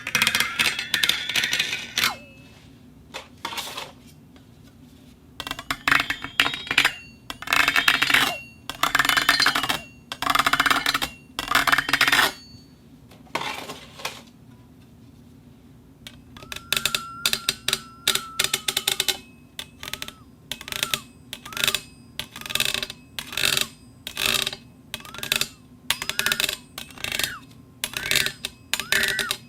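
A cup rubbing and rattling against a plate on a rotating table: several runs of scraping, jittering friction separated by pauses, then a quicker series of short strokes. A brief ringing tone sounds at the start of that series.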